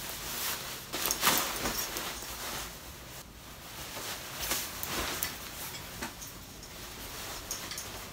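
Nylon puffer jacket rustling and swishing as it is pulled on over a hoodie and straightened, in several uneven swishes, the strongest about a second in.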